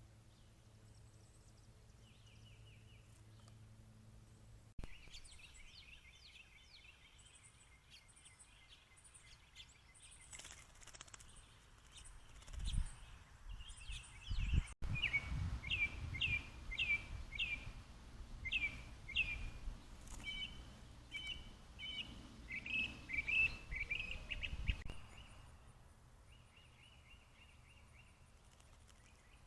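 Songbirds singing and calling: faint chirps at first, then from a few seconds in, long runs of quick down-slurred whistled notes, with low rumbling noise under them through the middle. The birdsong stops a few seconds before the end, leaving faint background noise.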